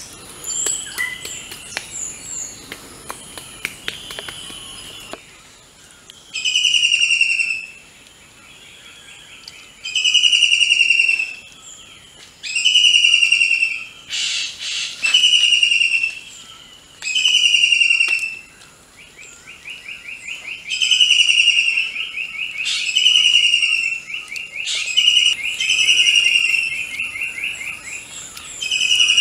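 A bird calling over and over: a slightly falling call about a second long, repeated every two to three seconds from about five seconds in. Before that there are light clicks and crackling.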